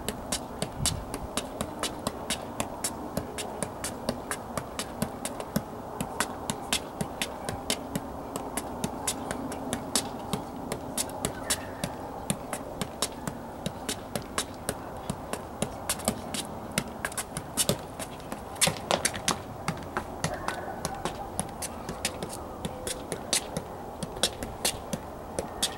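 A soccer ball juggled on the foot: light, even taps, about two a second, in an unbroken run of touches without the ball dropping.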